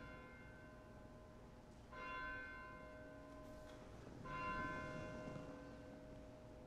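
An altar bell rung at the elevation of the chalice during the consecration. It is still ringing from a strike right at the start, is struck again about two seconds in, and is struck once more, loudest, just past four seconds, each strike ringing on and fading slowly.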